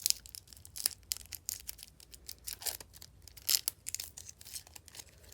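Packaging being handled and pulled open, crinkling and tearing in a run of irregular sharp crackles and clicks, the loudest about three and a half seconds in.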